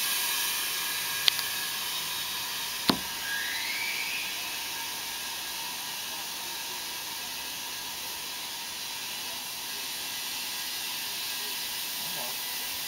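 Compressed air hissing steadily into a truck tire as it is inflated to seat the bead on the rim. Two sharp clicks come in the first few seconds, then a brief rising squeak.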